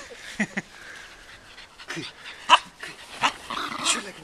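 Dogs at play giving about half a dozen short, separate yips and barks, spread through a few seconds.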